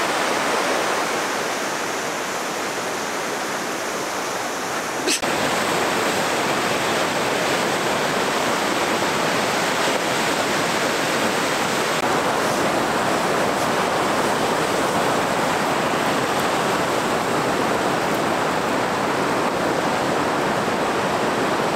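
Waterfall on a river, a steady loud rush of falling water, with one short click about five seconds in.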